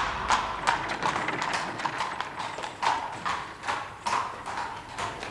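Horse's hooves clip-clopping on a hard street at a steady pace, about three strikes a second.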